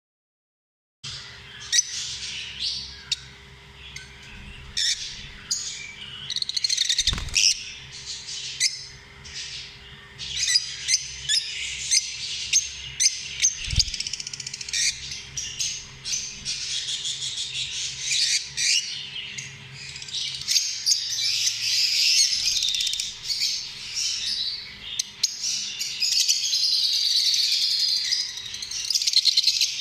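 A group of lovebirds chirping and squawking without pause, many high calls overlapping, starting about a second in. Two low thumps sound partway through.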